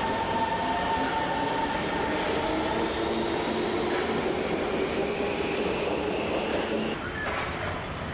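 SMRT electric metro train running, with wheel-on-rail noise under several steady whines and one whine that rises in pitch as it gathers speed. The sound drops a little about seven seconds in.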